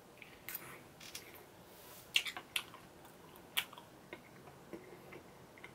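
Faint eating sounds: a scatter of short clicks and smacks, the loudest around two and three and a half seconds in, as ice cream cake is eaten from a glass bowl with a metal spoon.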